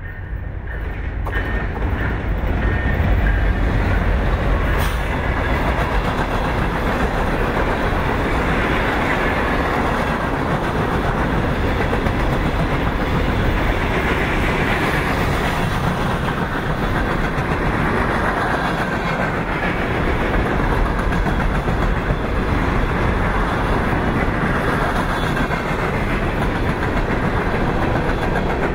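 Freight train passing close by: the diesel locomotives rumble past in the first few seconds, then a long string of hopper cars rolls by with a steady clatter of steel wheels on the rails.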